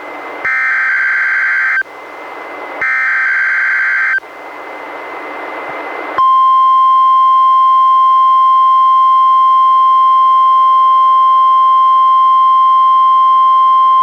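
NOAA Weather Radio required weekly test, received on a weather radio: the last two of three screeching EAS SAME header data bursts, each about a second and a half long, with static hiss between them. About six seconds in, the steady 1050 Hz warning alarm tone starts and holds.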